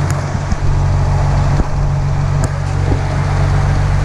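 Truck's diesel engine running steadily while driving, a constant low drone, with a few light clicks about a second and a half and two and a half seconds in.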